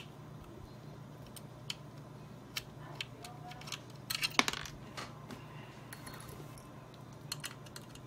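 Small metallic clicks and clinks of a screwdriver turning tiny screws out of a Radeon RX 480 graphics card, scattered irregularly, with the loudest cluster of clinks about four seconds in. A low steady hum runs underneath.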